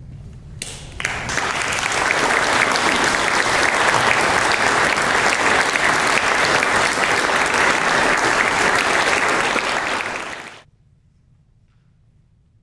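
Audience applauding, a dense, steady clapping that begins about a second in and cuts off abruptly near the end.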